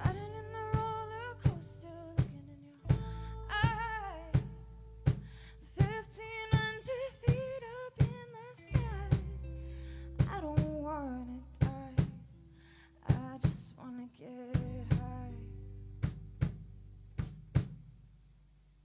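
Live rock band (drum kit, bass, electric and acoustic guitars) playing the closing bars of a song. Steady drum hits land about every 0.7 s under a sliding, wavering lead melody. The band stops near the end and the sound dies away.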